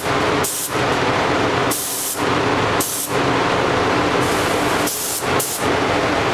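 SATA air spray gun hissing in several short spurts as the trigger is pulled and released, spraying paint. Under it is a steady rush of air with a low hum from the paint booth's ventilation.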